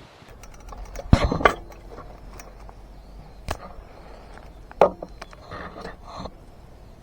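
A few sharp knocks and clatters of hard objects being handled, the loudest pair about a second in, with scattered single knocks and a short run of clatter near the end.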